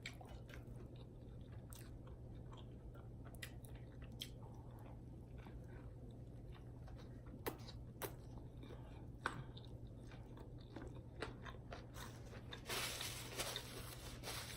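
A person biting and chewing food close to the microphone, with scattered small mouth clicks over a steady low hum, and a louder noisy patch about 13 seconds in.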